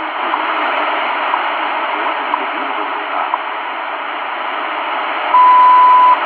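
Tecsun PL-450 shortwave radio tuned to 5000 kHz, playing a time-signal broadcast through a steady hiss of static. A faint tick comes once a second, and near the end a loud, steady beep of just under a second marks the top of the minute.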